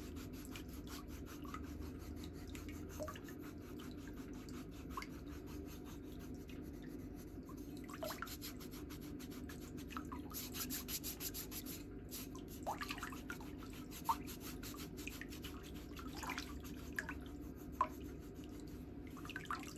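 Metal foot file rasping over the dry, flaky skin of a foot's sole and heel in quick, steady strokes, scraping off dead skin.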